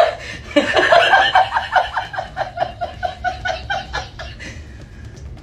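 A woman laughing hard: a long run of quick, evenly spaced laughs that trails off about four seconds in.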